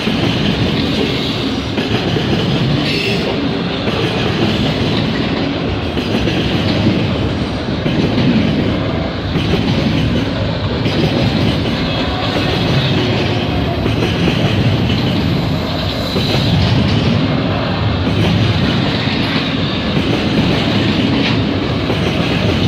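CP intermodal freight train's double-stack container cars rolling past at close range: a steady rumble of steel wheels on the rails, with repeated clicks and knocks from the wheels and cars.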